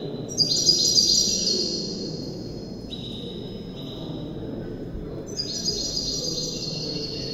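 Caged songbird singing: a loud phrase of high, clear notes about half a second in, single held tones through the middle, and another run of notes near the end.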